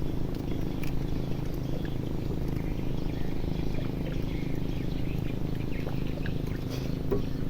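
Small boat engine running steadily at low speed, with faint scattered clicks above it.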